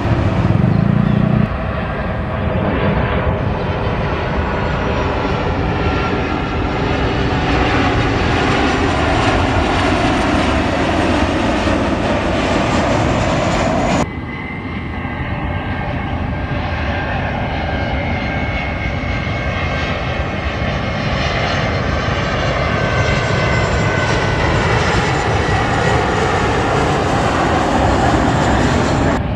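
Jet engines of airliners on final approach passing low overhead: a steady, loud jet noise with a high whine. It cuts abruptly about halfway through to a second airliner's approach. The first aircraft is a Boeing 787.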